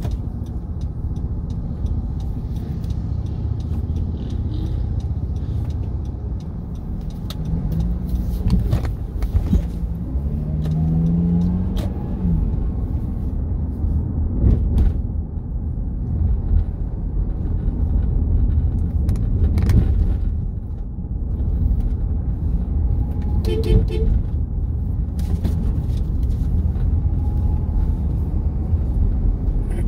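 A car driving slowly through town traffic, heard from inside the car: a steady low engine and road rumble with a few brief knocks.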